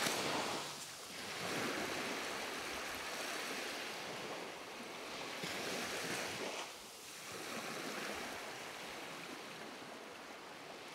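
Rushing noise like surf washing in, with no tones or voice. It swells and falls back, dipping about a second in and again about seven seconds in.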